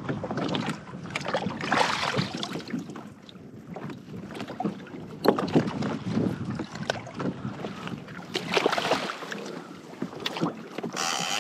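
Water splashing and sloshing around plastic fishing kayaks, with scattered knocks and clatters of gear being handled aboard.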